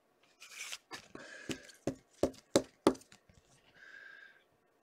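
Hands handling hockey trading cards and their plastic sleeves: rustling with a run of about seven sharp clicks and taps, then a short breathy hiss near the end.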